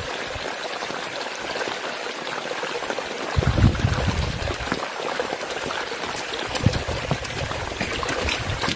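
Muddy rainwater runoff streaming down a dirt trail, a steady rushing trickle. A few low thuds break in over it, about a third of the way through and again later.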